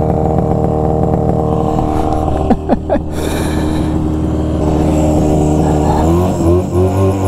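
Vintage Arctic Cat Panther snowmobile's two-stroke engine idling steadily, with a few short squeaks about two and a half seconds in. Near the end the engine revs up in uneven pulses as the sled pulls away.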